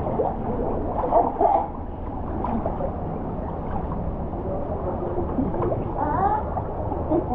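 Water sloshing and gurgling around a swimmer in a narrow rock gorge, over a steady low rush. Faint voices echo about a second in and again near the end.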